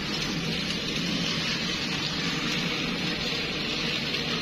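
Toy trains running on plastic track: a steady whirring and rattling from their small motors and wheels.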